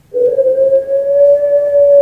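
Puter pelung, a long-cooing domestic Barbary dove, giving one long drawn-out coo that starts a fraction of a second in and holds a steady pitch.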